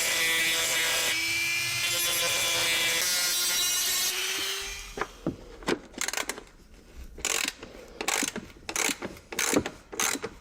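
Electric rotary tool running at a steady high speed as it cuts away a rusty metal section, then switched off about four seconds in. Irregular clicks and rattles of metal parts being handled follow.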